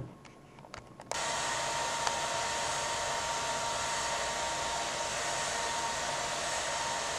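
A second of quiet room tone, then an abrupt, steady hiss-like noise with a faint high tone running through it.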